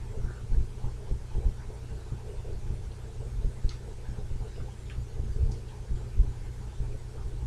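Low, irregular thumping rumble over a steady low hum, with a few faint soft clicks.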